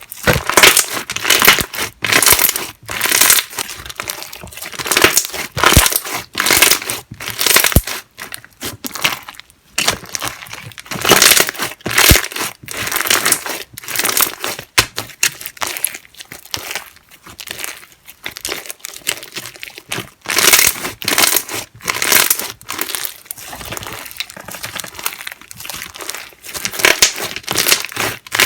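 Slime being squeezed, pressed and stretched by hand. It makes repeated bursts of dense crackling, clicking and popping, one squeeze every second or two.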